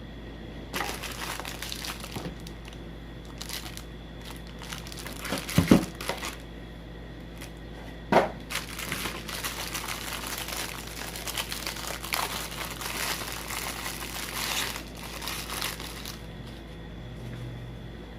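Packaging crinkling and rustling as it is handled during an unboxing, with two knocks, the louder about five and a half seconds in and another about eight seconds in.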